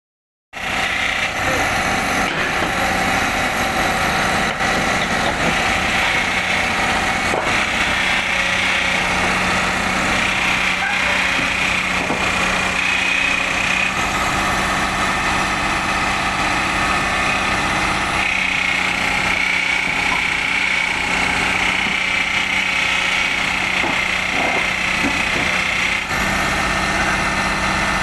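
Worn JCB JS200 excavator's diesel engine running steadily, starting about half a second in, with a steady whine over a low hum; this machine's hydraulic pump is described as growling.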